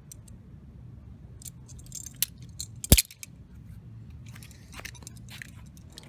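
Metal clicks and clinks of balisong (butterfly) knife handles and blades being swung folded and open, with one loud knock about three seconds in.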